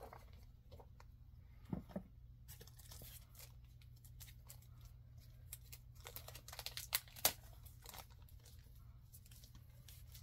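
Comic books being handled and sorted: paper and plastic rustling and crinkling in short scattered bursts, with the loudest crackles about six to seven seconds in.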